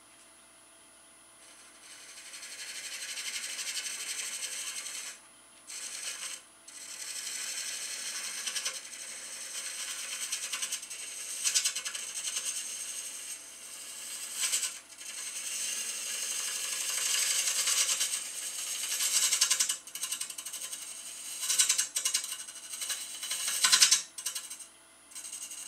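A turning tool cutting into the end-grain face of a spinning cherry bowl blank on a wood lathe: a high scraping hiss in long passes. It starts about two seconds in and stops briefly a few times.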